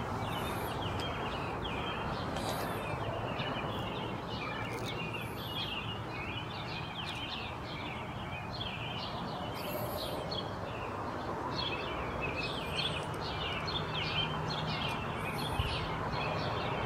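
Many small birds chirping and calling in quick, overlapping notes over a steady wash of outdoor background noise. A low steady hum joins in during the last few seconds.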